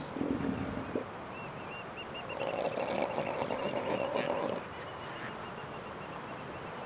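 Southern elephant seals calling in a breeding colony: a short low call at the start, then a longer, higher call from about two and a half to four and a half seconds in.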